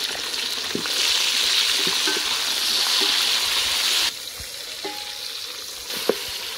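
Chopped tomatoes sizzling in hot oil with golden-brown fried onions in a pot, an even hiss that drops to a quieter level about four seconds in. A few light knocks sound through it.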